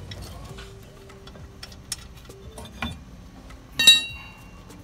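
Scattered light metallic clicks as bolts and brake parts are handled at a car's rear disc brake, then a sharp, ringing metal clink about four seconds in.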